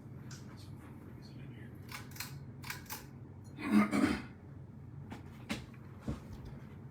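Handling noises over a steady low hum: several short clicks and taps, with one louder rustling knock about four seconds in.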